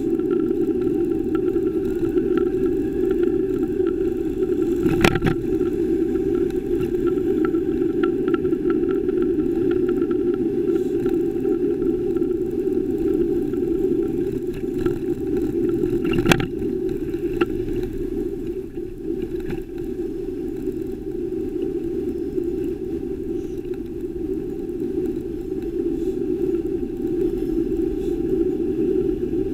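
Road noise from a bicycle-mounted camera riding through city traffic: a steady low rumble, with cars running alongside. Two sharp knocks stand out, about five seconds in and again about sixteen seconds in.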